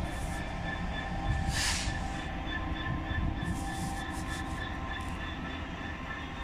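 Freight train of open box wagons, hauled by a diesel-electric locomotive, passing: a steady low rumble of wheels on rail with a high, steady ringing squeal over it that rises slightly in pitch near the end.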